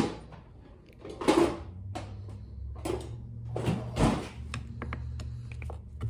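A screwdriver scraping and knocking against the stuck clutch housing of a Stihl trimmer power head as it is pried loose, in several short bursts.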